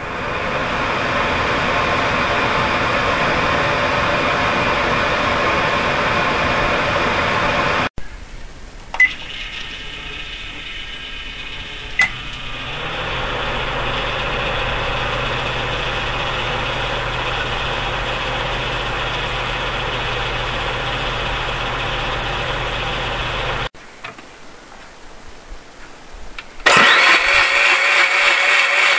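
A series of electrical appliances with electric motors running one after another, each a steady motor noise, joined by abrupt cuts. The second one starts with two sharp clicks and then settles into a steady run with a low hum. A louder machine comes in near the end.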